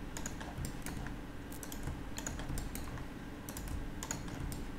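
Irregular clicking of a computer keyboard and mouse, several sharp clicks a second, over a faint steady low hum.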